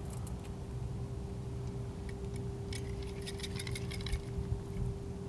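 A quick run of light clicking and clinking a little under halfway in, over a steady low hum with one constant tone.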